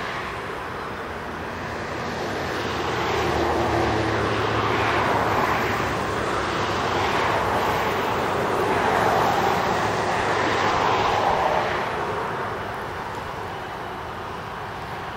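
Class 66 diesel locomotive's EMD two-stroke V12 engine running under power as it hauls a train of empty steel wagons along the track. The sound swells a few seconds in, holds, and eases off near the end.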